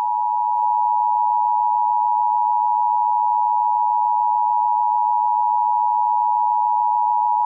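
Emergency Alert System attention signal: a steady, unbroken dual tone near 1 kHz (853 and 960 Hz) that cuts off suddenly near the end.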